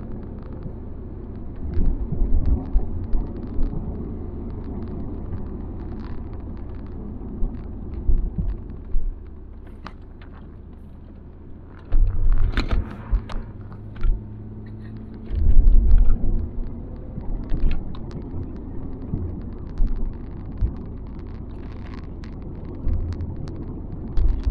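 Interior noise of a 2001 Ford Fairmont AU being driven on a wet, winding road: steady low engine and tyre rumble, with frequent light ticks and several heavy low thumps.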